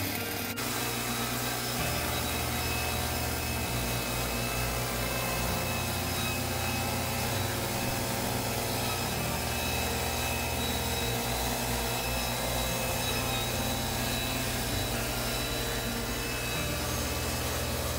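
Woodland Mills HM122 portable bandsaw mill running steadily, its gas engine driving the band blade through a pine log.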